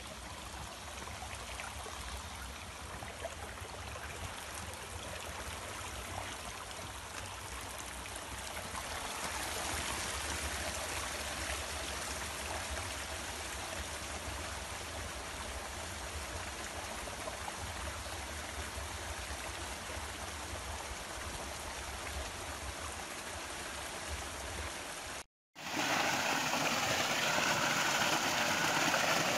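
Shallow hot-spring stream running over rocks, a steady rush of water. After a sudden break about 25 seconds in, the water is louder and closer, spilling over a small cascade between boulders.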